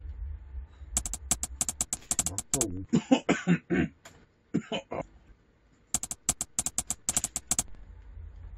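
Close-up eating of a flaky pastry: two runs of quick, crisp crunches as it is bitten and chewed, one run about a second in and another about six seconds in.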